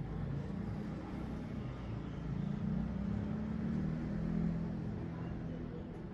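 Low steady rumble that swells a little midway through, then eases.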